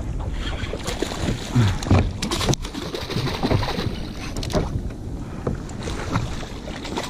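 Wind rumbling on the microphone of a fishing kayak at sea, over water noise, with a cluster of sharp knocks around two seconds in and another just after four and a half seconds.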